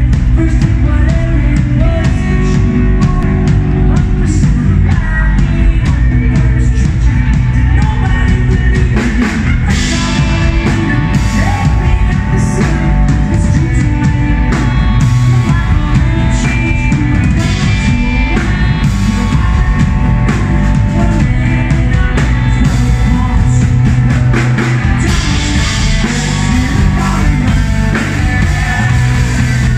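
Rock band playing live and loud: electric guitars and a drum kit, with lead vocals sung into a microphone.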